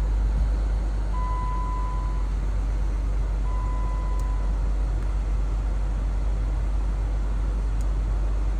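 Jeep running, a steady low rumble heard inside the cabin, with two electronic beeps of about a second each, the first about a second in and the second a couple of seconds later.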